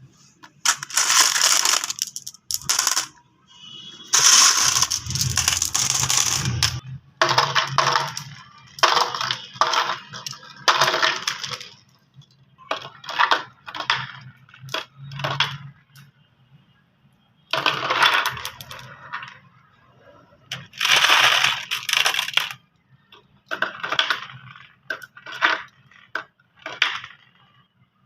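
Glass marbles rolling and clattering down a race track, in repeated bursts of rattling clicks with short pauses between them.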